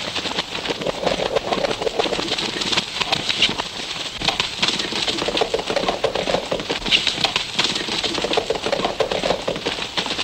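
Horses galloping: a fast, continuous clatter of hoofbeats.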